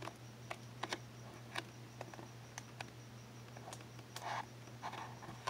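Pages of a scrapbook paper pad being turned and handled: scattered light clicks and taps of stiff paper.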